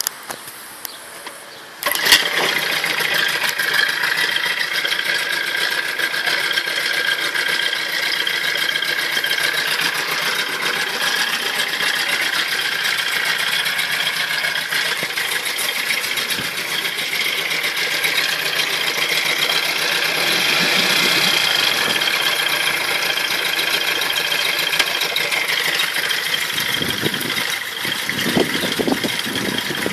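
1998 Johnson 6 hp two-stroke outboard motor starting about two seconds in, then running steadily at idle.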